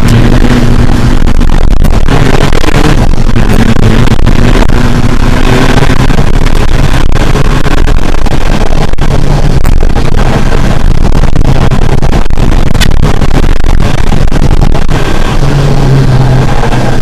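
Rally car engine heard loud from inside the cabin, running hard under full throttle, its note breaking off and picking up again every couple of seconds as the revs rise and drop. A few sharp clicks sound over it.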